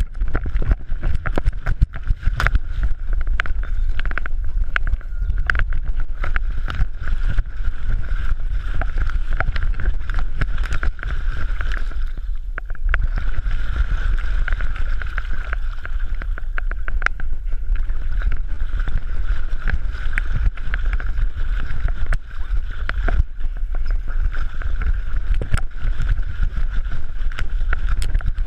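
Water sloshing and splashing around a camera worn on a swimming dog's back, with a heavy low rumble and constant small clicks and crackles of water hitting the camera.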